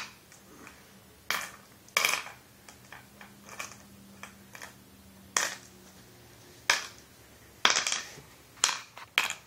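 Flat glass mancala stones dropped into the pits of a wooden mancala board, clicking against the wood and the stones already there: about ten sharp clicks at an uneven pace.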